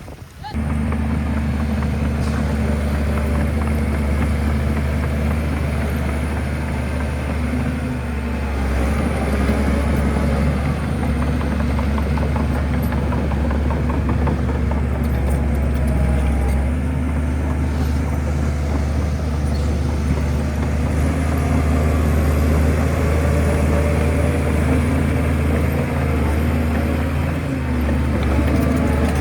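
Heavy diesel engine of a Shantui bulldozer running steadily, a deep continuous engine note with only small rises and falls in level.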